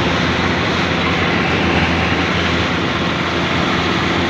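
Combine harvester running while harvesting: a steady engine drone under a dense, even mechanical noise from its working machinery, heard from on top of the machine.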